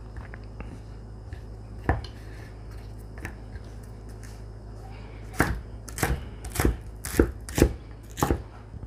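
Chef's knife cutting red bell pepper on a wooden cutting board: a few light cuts and one sharper knock, then from about five seconds in a run of sharp knocks, roughly two a second, as the blade dices the pepper and strikes the board.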